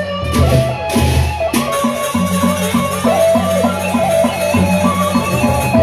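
Sasak gendang beleq gamelan music from Lombok: a bamboo suling flute plays a held, stepping melody over steady, regular drum strokes.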